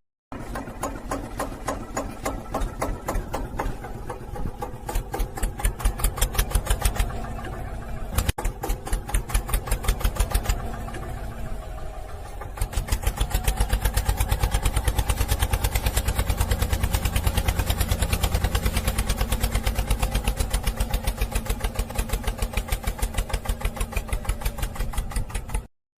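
Tractor diesel engine chugging in a fast, even rhythm of pulses. It turns louder and steadier about halfway through.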